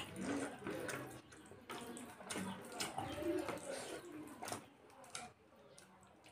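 Close-up eating sounds: wet chewing and mouth smacking, with fingers squishing and mixing food on a paper plate, in many short clicky strokes that grow quieter in the last second.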